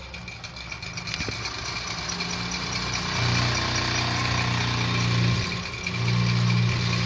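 Wilesco toy steam engine running, driving the workshop's line shaft, belts and driven models: a steady mechanical running sound that grows louder, with a stronger low hum in two stretches from about three seconds in.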